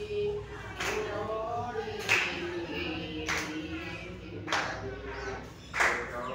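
A seated group clapping together in a slow, even beat, five claps about a second and a quarter apart, while voices sing along in long held notes.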